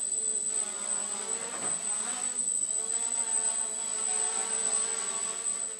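Micro quadcopter's four small brushless motors (Turnigy 1811 2900kv) spinning 5030 propellers in flight, a buzzing drone whose pitch keeps rising and falling as the throttle is worked to hold and move the craft, with a steady high whine above it.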